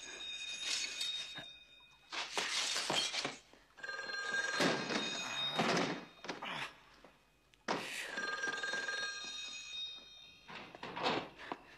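Payphone bell ringing in repeated bursts of a second or two, about every four seconds, with loud thuds between the rings.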